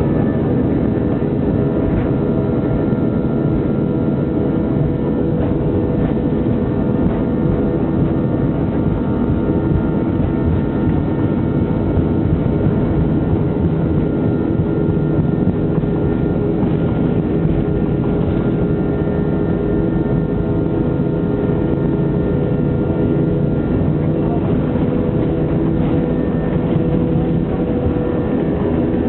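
Airbus A321 jet engines running at steady high takeoff thrust: a loud, even rumble with several whining tones held at a constant pitch.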